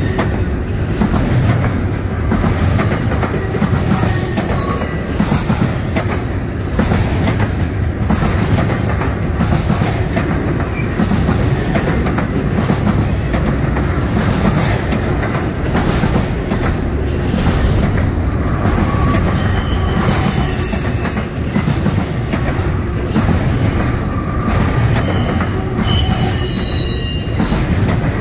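Double-stack intermodal freight cars rolling past close by: a steady, loud rumble of steel wheels on rail with repeated clacks, and brief wheel squeals a few times, mostly in the second half.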